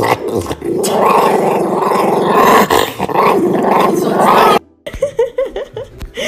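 A small dog growling continuously with its head in its food bowl, a loud, rough growl that swells and eases, then cuts off abruptly about four and a half seconds in.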